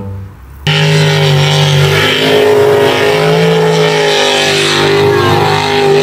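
Racing jet boat's engine running hard at high revs, starting abruptly less than a second in.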